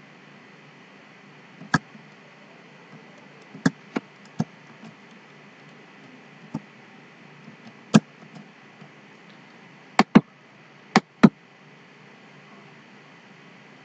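Computer keyboard and mouse clicks: about ten scattered sharp clicks, the last few in quick pairs, over a faint steady hiss.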